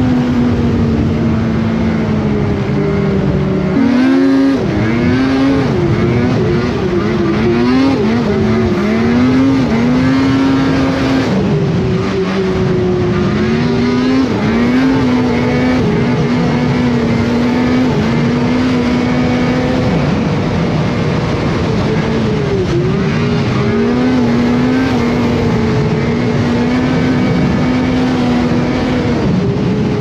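Snowmobile engine running at trail speed under the rider. Its pitch drops and climbs again and again as he eases off and gets back on the throttle, holding steady for a stretch midway, over a constant rush of wind and track noise.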